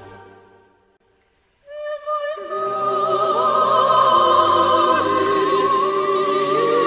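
Operatic singing with wide vibrato as closing-credits music. It follows a short silence: the earlier sound fades out within the first second, and the voice comes in about a second and a half in. Lower accompaniment joins about a second later and the music builds and holds.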